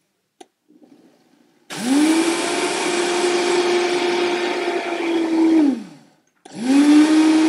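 Vitamix blender grinding oats into oat flour. The motor spins up about two seconds in, runs steadily, winds down and stops near six seconds, then starts again at once.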